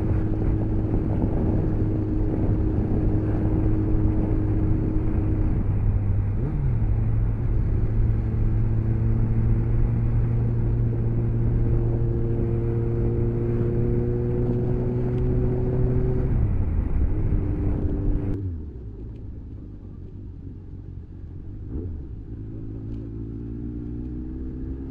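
Motorcycle engine running at a steady cruise under a rush of wind on the helmet microphone. The engine note steps up about six seconds in, holds, then falls as the bike slows. Past the middle the wind noise cuts out suddenly and the engine runs quieter at low speed, its note rising again near the end as it pulls away.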